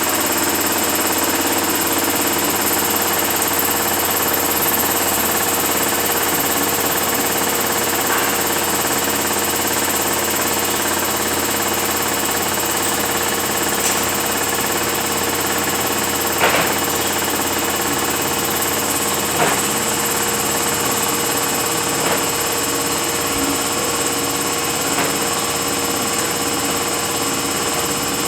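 A rebuilt Fuller FRT truck transmission running on a test dyno: a steady mechanical drone with a constant gear whine. A few short clicks or knocks come in the second half.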